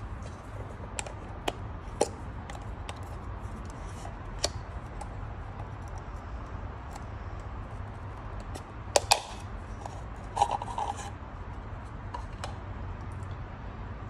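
Plastic ticks and clicks from the snap-fit case of a BMW K100 flasher relay being pried open with a pocket knife, with a sharp double click about nine seconds in and a short scraping rub just after.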